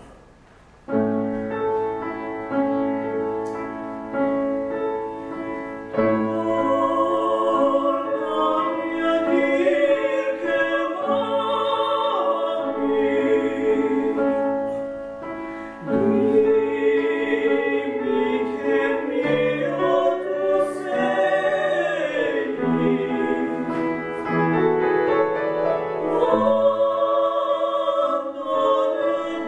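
Piano accompaniment starts with chords about a second in, and a classically trained operatic voice enters about six seconds in, singing a slow line with wide vibrato over the piano.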